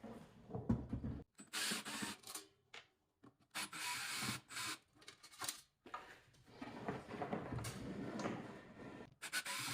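Screws being backed out of the Cast Master GG3000 electric furnace's heat shield with a driver, heard as three scratchy, whirring runs of one to two and a half seconds each.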